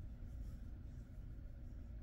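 Soft rustling of a hand stroking and rubbing a dog's fur, over a steady low room rumble.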